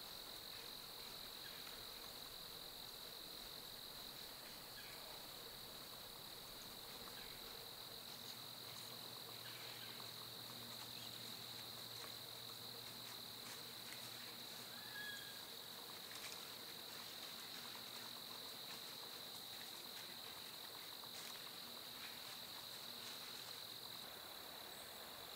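Crickets trilling in one steady, unbroken high-pitched drone, with a few faint ticks.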